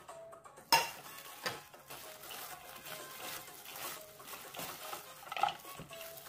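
Gloved hand tossing and mixing sliced raw vegetables in a glass bowl: soft rustling and patter, with a few sharp knocks, the loudest just under a second in, a smaller one soon after and another near the end. Faint background music underneath.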